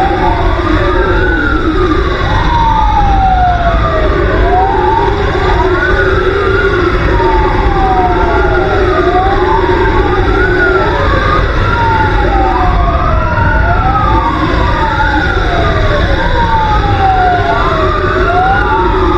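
Fire engine sirens: two or more electronic sirens wailing out of step, each rising and falling about every two seconds, so their sweeps keep crossing. Underneath runs a steady low rumble from the moving truck.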